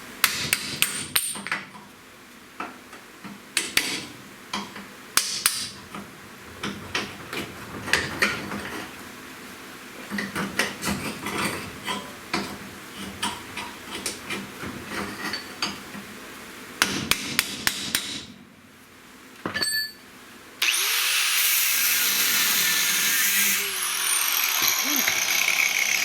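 Hammer blows on steel, irregular strikes coming in quick clusters for about eighteen seconds. Near the end, a loud steady high rushing noise runs for about five seconds and then stops.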